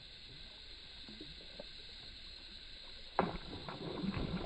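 Faint water sputtering from a soft-plastic topwater frog lure being retrieved, then about three seconds in a sudden loud splash as a bass strikes it at the surface, with more splashing after.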